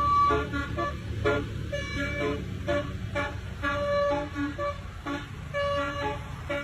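Basuri telolet horn playing a quick tune of short notes at changing pitches, over a steady low rumble.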